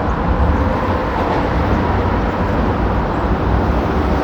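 Steady city road-traffic noise: a dense low rumble with hiss and no distinct single vehicle standing out.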